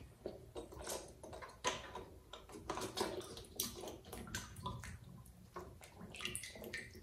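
Water splashing and sloshing in a plastic tub as a baby monkey paddles and plays with a rubber ball: irregular small splashes.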